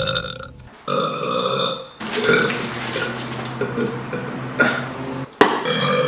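A woman burping: a short burp about a second in, then a long, drawn-out burp lasting about three seconds. A sharp click comes near the end.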